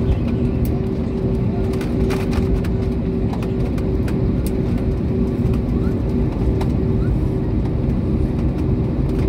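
Airliner cabin noise while taxiing after landing: a steady low rumble from the engines at low power, with a droning hum and a few light clicks and rattles.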